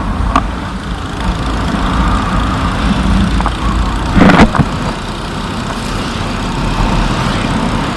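Motorcycle engine running with road and wind noise on the rider's camera microphone while riding. A brief louder burst comes about four seconds in.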